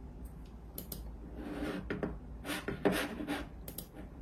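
Computer mouse slid and rubbed on the desk, with a few sharp clicks.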